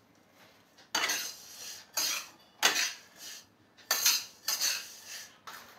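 Plastic spatula scraping around a non-stick kadai as roasted fennel seeds are scooped out and poured onto a steel plate, the dry seeds rustling and pattering. About six scoops, one every half second to a second.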